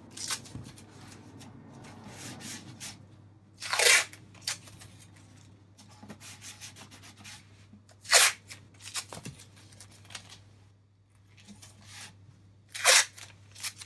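Masking tape pulled off the roll in three short, loud rips a few seconds apart, with hands rubbing the strips flat between them.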